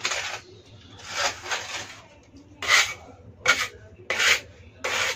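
Steel putty knife spreading and scraping synthetic plaster across a wall in a series of short strokes, about seven scrapes in quick succession.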